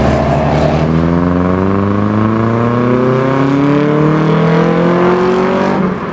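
Engine of a classic Datsun coupe accelerating away in one long, steadily rising pull. Near the end the pitch falls and the sound gets quieter.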